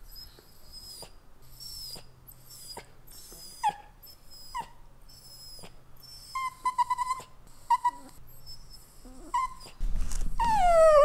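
An Italian greyhound whining: a run of thin, high whistling whimpers, then short squeaky cries from about six seconds in, and a loud falling whine near the end.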